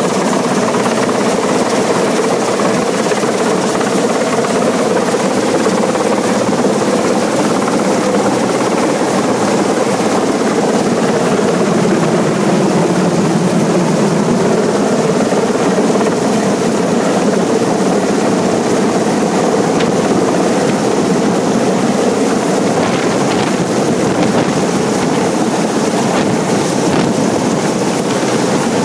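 Westland Sea King search-and-rescue helicopter hovering low overhead, its main rotor and twin turboshaft engines making a loud, steady roar. The tone sags lower for a few seconds about halfway through, then comes back up.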